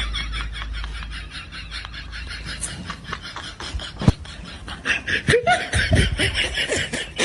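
A person snickering and laughing in quick repeated bursts, with a sharp click about four seconds in.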